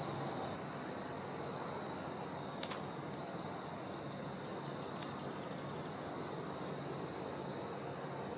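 Outdoor ambience of insects trilling steadily in high, gently pulsing tones over a low background rumble, with one sharp click about two and a half seconds in.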